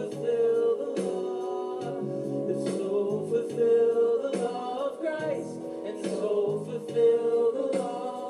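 Gospel song: voices singing over instrumental backing.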